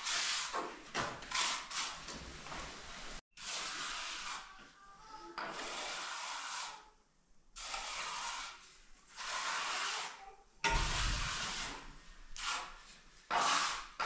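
Hand trowel scraping and smoothing wet cement screed on a floor in repeated strokes, each about half a second to a second and a half long, with a dull thump about ten and a half seconds in.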